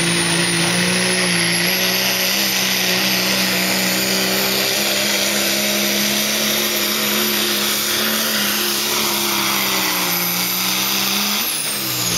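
Diesel pickup truck, a second-generation Dodge Ram, pulling a sled at full throttle: the engine runs steady under heavy load with a high turbo whistle above it. Both drop in pitch near the end as the throttle comes off.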